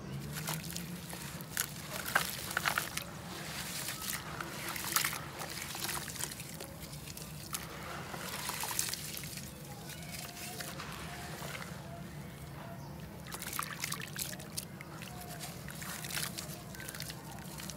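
Hands sloshing and squeezing gritty red dirt and crumbling dry clay chunks in a basin of muddy water: irregular wet splashing and trickling, with sharp gritty crackles as the lumps break apart.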